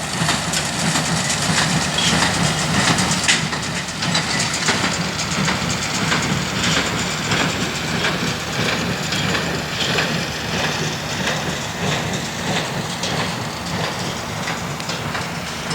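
Tractor and New Holland small square baler at work baling hay: a steady engine drone under the baler's fast, rhythmic mechanical clatter.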